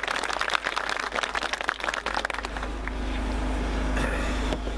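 Crowd applauding with hand clapping, which dies away about two seconds in. A steady low hum is left after it.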